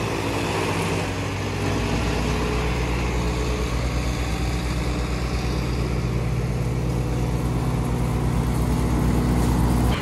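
Tractor engine running steadily under load, driving a PTO chaff cutter that chops green fodder and blows it up a chute. About two seconds in, the hum turns deeper.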